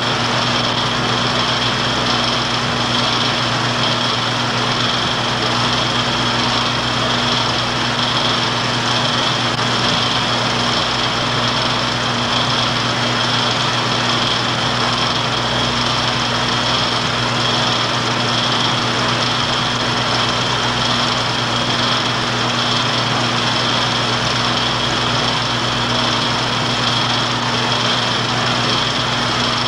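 Movie projector running: a steady mechanical whir with a low hum and a high whine, unchanging throughout.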